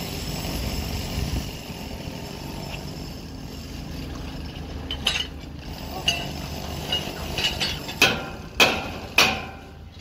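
Sharp metal-on-metal strikes: lighter clinks from about halfway, then three loud strikes about half a second apart near the end, each ringing briefly.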